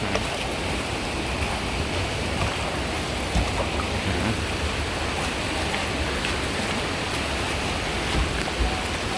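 Steady rain falling, an even hiss with faint drop ticks, under low rumbling thumps that come and go.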